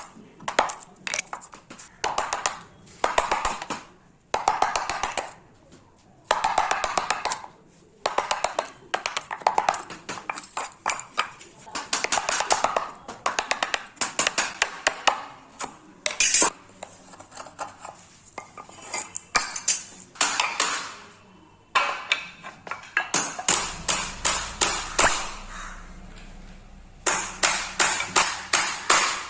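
Runs of quick, sharp taps and clinks, many to the second, with stretches of rougher scraping noise between them.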